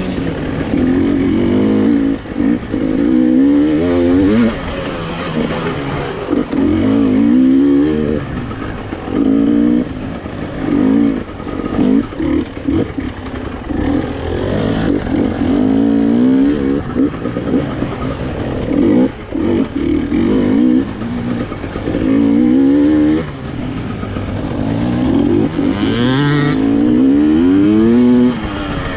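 Two-stroke engine of a KTM EXC 300 TPI enduro motorcycle, heard from on the bike, revving up and dropping back again and again as the throttle is opened and shut and the gears are changed.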